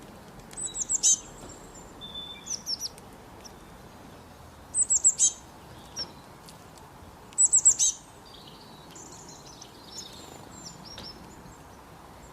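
A songbird singing short phrases of rapid, high notes that each sweep downward, four phrases about two to three seconds apart, with softer twittering near the end.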